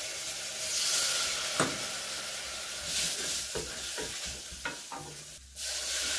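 Leek, celery and flour sizzling in butter in a stainless-steel saucepan, a roux in the making, while a wooden spatula stirs and scrapes the pan bottom in several short strokes.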